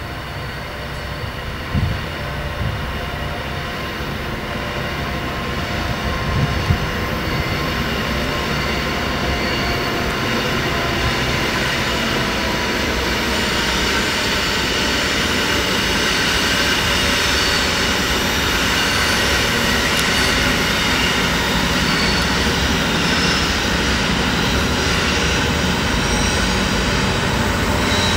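Diesel-hauled freight train approaching, its rumble growing steadily louder. Steady high-pitched tones ride on top, typical of wheel squeal on tight curves. There are two brief knocks early on.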